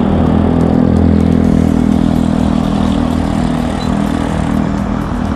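Motor vehicle engine humming steadily close by, fading about two-thirds of the way through, over constant wind rush on a moving bicycle's handlebar-mounted camera.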